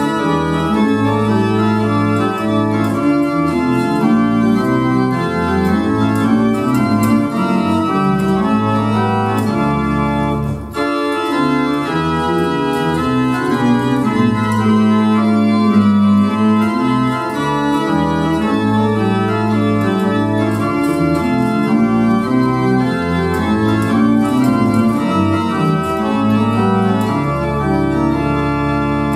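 Church pipe organ playing a chordal piece in several voices over a deep held bass, with a short break about ten seconds in.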